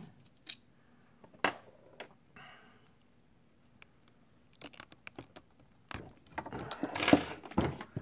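Small metal clicks and taps of tweezers and loose lock parts being handled on a desk, a few spaced-out clicks at first. About six seconds in comes a dense rustling clatter of handling noise, loudest near the end.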